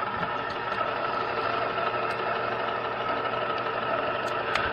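The small turntable motor of a 1974 Zenith Z910 stereo console is running with a steady, excessive whine. The owner traces the noise to a dry bottom bushing where the motor shaft turns. A couple of light clicks come near the end.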